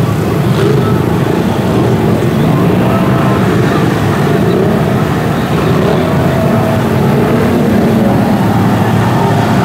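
Lifted Chevy Avalanche's engine running hard and steady as the truck plows through deep muddy water.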